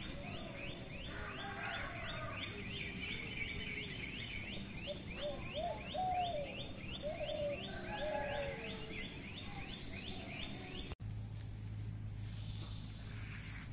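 Rural outdoor ambience: a rapid, even train of short high chirps, about three a second, with lower bird calls in the middle. It cuts off abruptly about eleven seconds in, leaving quieter ambience with a low hum.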